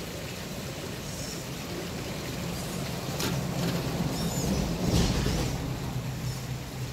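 Small electric motor and gears of a radio-controlled Vaterra Suburban crawler whirring as it crawls over rock, growing louder in the middle, with a low thump about five seconds in. A stream runs underneath.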